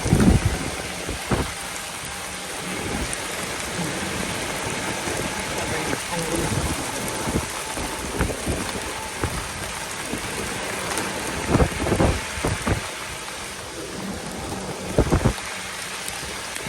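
Steady rain falling, a constant hiss, with a few short low thumps about a second in and again near the middle and end.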